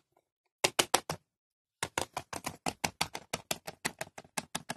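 A plastic Littlest Pet Shop cat figurine tapped along a wooden surface to act out running footsteps. There are four quick taps, a short pause, then an even run of sharp taps at about six a second.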